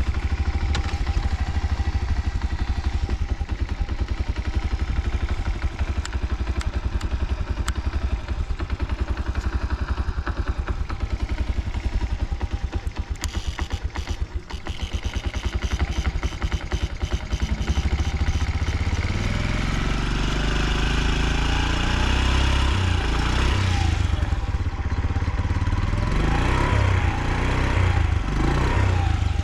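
Honda Solo's 50 cc four-stroke single-cylinder engine running at a steady idle, then, from a bit past the halfway point, its engine speed rising and falling repeatedly. It sounds healthy: it revs up cleanly with no abnormal noises.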